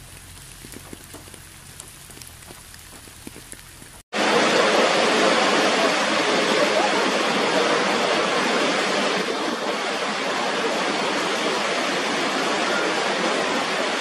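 Light rain pattering in scattered drops. About four seconds in, an abrupt cut gives way to the loud, steady rush of a large waterfall.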